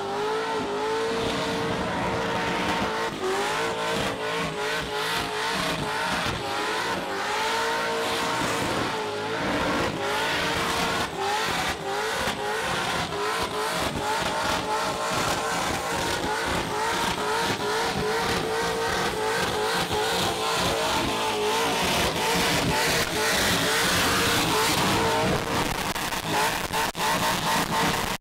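A car's engine is held at high revs during a burnout, its pitch dipping and rising again and again. Tyres spin and squeal against the pavement, and the tyre noise grows in the last few seconds.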